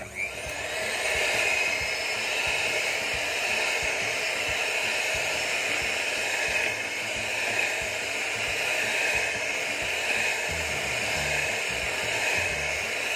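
Philips electric hand mixer switched on, spinning up within the first second and then running steadily, its beaters whisking still-liquid fresh whipping cream in a plastic bowl.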